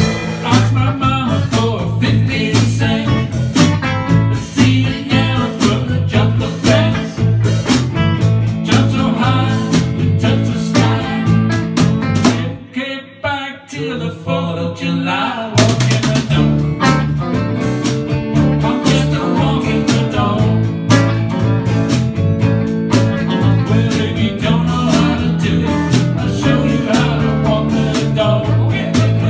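A small live band of electric guitars and a drum kit playing a rock jam, with a man singing at the microphone. About halfway through, the drums and low end drop out for about three seconds, leaving a quieter guitar line, then the whole band comes back in together.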